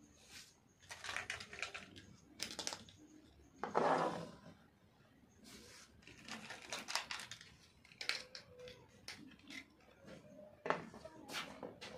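Small hollow plastic animal figurines being set down and shifted on a tabletop: irregular clusters of light clicks and taps, with a louder handling noise about four seconds in.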